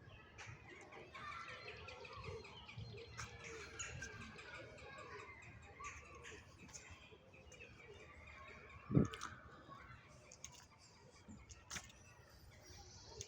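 Birds chirping, with a single loud thump about nine seconds in.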